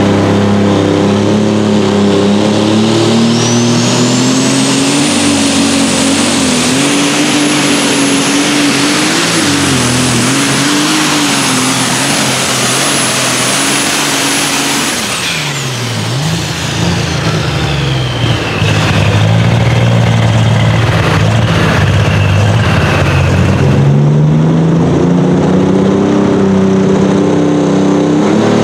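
Light Super Stock International pulling tractor's turbocharged diesel engine running at full power down the track. A high turbo whine climbs over the first few seconds and holds. About halfway through the engine is backed off, and the whine and engine note fall away. After that, engines idle and rev at a lower pitch.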